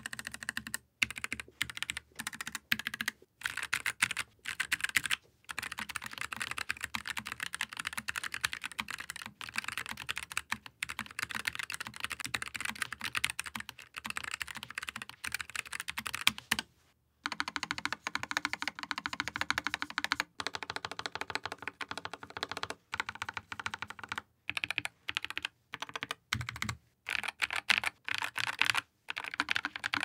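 Steady typing on low-profile mechanical keyboards, a dense stream of key clacks. The first half is a Keychron K3 Max with Gateron low-profile 2.0 Brown tactile switches. After a brief break about halfway through, the typing continues with a fuller, lower sound on what appears to be a NuPhy Air75 V2 with NuPhy Cowberry linear switches.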